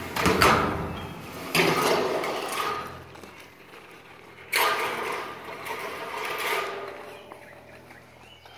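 Long corrugated metal carport panel, about 32 feet, rattling and flexing as it is lifted and stood on edge by hand, in three bursts: one at the start, one about a second and a half in and a longer one about halfway through.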